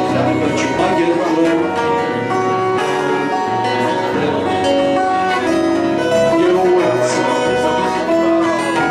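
Live instrumental passage on several acoustic guitars, with a violin holding long notes over them.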